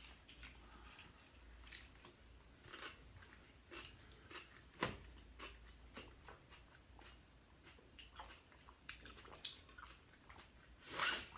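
People chewing and biting food, with soft mouth clicks and smacks coming at irregular intervals and a louder, longer sound near the end.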